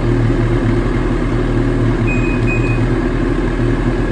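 Ski-Doo 850 E-TEC two-stroke snowmobile engine idling steadily, with two short high beeps a little after two seconds in.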